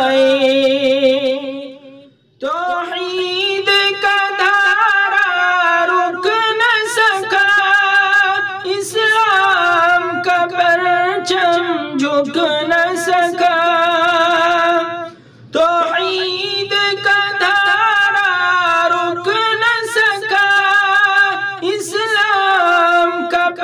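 A cappella naat singing: a single voice holding long, wavering melodic notes with few clear words, breaking off briefly about two seconds in and again around fifteen seconds in.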